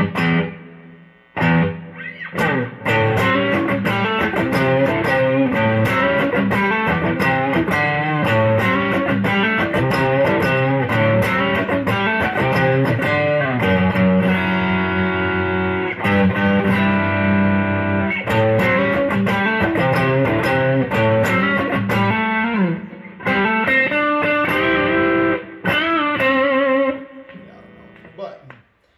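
Electric guitar with V2 clone pickups played through a Bluesbreaker overdrive pedal, the guitar's volume knob rolled back a little: a flowing passage of notes and chords with a held chord about halfway through. The playing stops about two seconds before the end and rings away.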